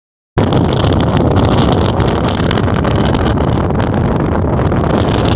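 Passenger ferry's engine running steadily with a low rumble, under a rush of wind on the microphone; it begins abruptly just after the start.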